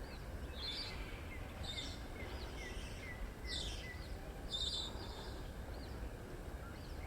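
Senegal parrot giving four sharp, shrill calls in the first five seconds, with a faint run of short, quick chirps under the first few. A steady low background rumble runs underneath.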